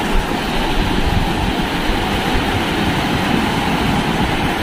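Sea surf breaking and washing up the shore, a steady loud rush, with wind buffeting the microphone.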